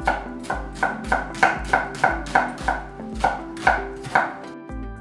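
Chef's knife slicing through a halved onion onto an end-grain wooden butcher-block board: a steady run of about a dozen knife strikes, roughly three a second, stopping a little after four seconds in.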